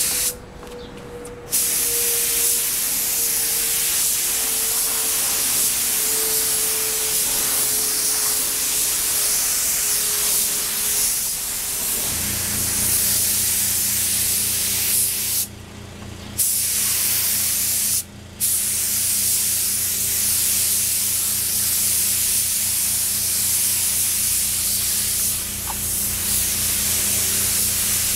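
Gravity-feed air spray gun hissing steadily as it lays on a coat of clear over carbon fiber, cut off twice briefly midway where the trigger is let go. A low steady hum joins about twelve seconds in.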